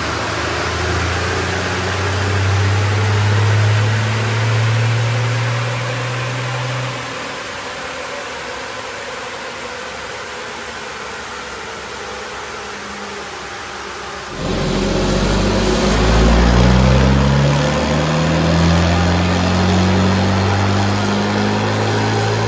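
A Cummins 6BT 5.9-litre straight-six turbodiesel in a 1984 Land Rover One Ten running on a chassis dyno. Its steady engine note drops away about seven seconds in, leaving a duller steady noise. About fourteen seconds in it changes suddenly to a second Land Rover diesel, fitted with a Turbo Technics turbo and a tuned injection pump, revving on the dyno with its pitch climbing steadily and louder.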